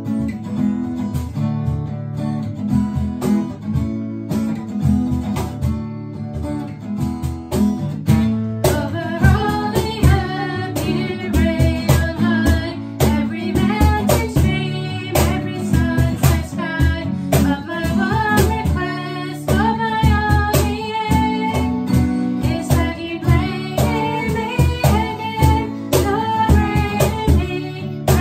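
Acoustic guitar strummed steadily as an introduction. About eight seconds in, a woman and a girl join in, singing a worship song over it.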